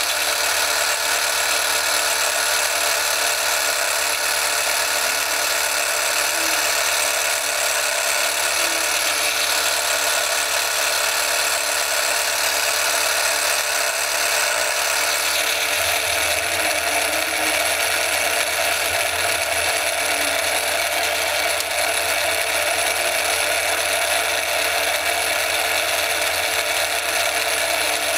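Turnell & Odell lathe running at slow speed in back gear while a drill bores a long hole through the tailstock quill: a steady mechanical whirr of the motor and gearing with the drill cutting.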